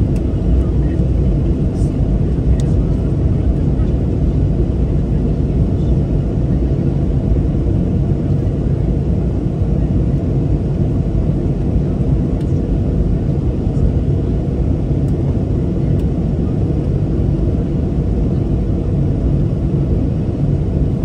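Steady low rumble of a Boeing 737-800's CFM56-7B turbofan engines and airflow, heard inside the cabin from a seat over the wing, holding an even level throughout.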